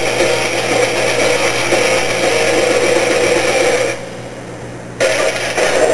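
Loud, harsh, distorted grinding din from a TV show's opening title sequence. It drops to a quieter stretch about four seconds in, then comes back a second later.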